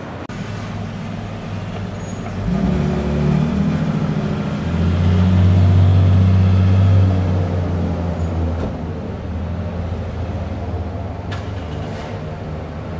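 A motor vehicle's engine running on the street, a low steady hum that grows louder about two and a half seconds in, is loudest midway, then slowly fades as it passes.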